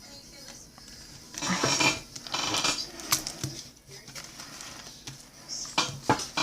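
Trading cards being handled and flipped through: two bursts of rustling and sliding card stock between one and three seconds in, then a few sharp clicks and taps near the end.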